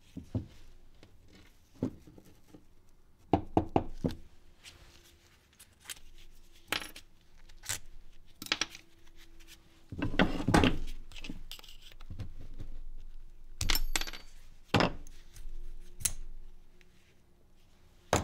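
Metal parts and hand tools clinking and clattering as an electric string trimmer is taken apart, in irregular knocks, with a quick run of clinks a little over three seconds in and a longer rattle about ten seconds in.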